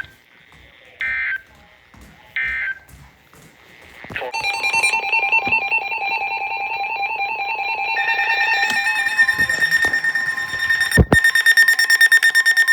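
Emergency Alert System broadcast on NOAA Weather Radio: three short bursts of the digital data tones about a second apart, then the steady two-tone EAS attention signal starting about four seconds in. About eight seconds in a second, pulsing alarm tone joins it, and there is one sharp click near the end.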